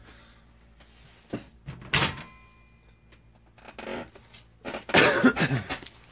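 Scattered clicks and knocks of a trading card in a plastic holder and other cards being handled and set down on a tabletop, the sharpest about two seconds in. A brief muffled voice sound follows about five seconds in.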